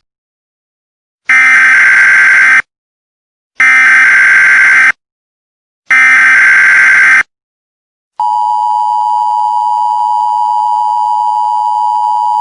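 Emergency Alert System tones: three loud bursts of screechy SAME header data, each a little over a second long with short gaps between them. After a pause, the steady two-tone EAS attention signal starts about two-thirds of the way in and holds, marking the start of an emergency alert.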